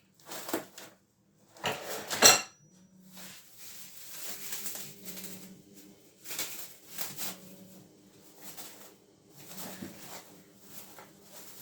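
Kitchen bowls and utensils clattering a few times, the loudest knock about two seconds in with a short ring, then softer rustling and handling as the dough is covered with thin paper.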